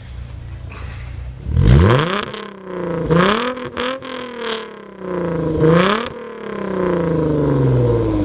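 Maserati Quattroporte engine and exhaust idling, then revved in several sharp blips about a second apart. The revs fall away slowly near the end.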